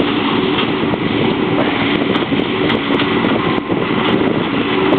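An engine running steadily at idle under wind buffeting the microphone.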